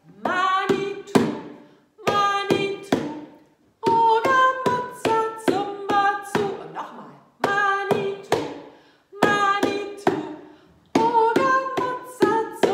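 Hands drumming on an upturned plastic bowl used as a drum, in short repeated rhythmic phrases of three to five strikes with brief gaps between them. The strikes come with pitched, ringing tones.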